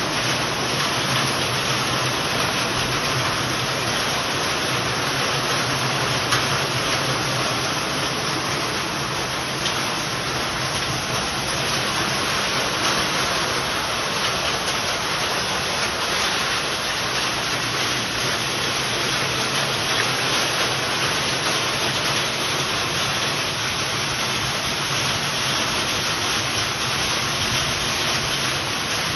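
Heavy rain pouring down steadily in a dense, even hiss, with a couple of brief sharper taps.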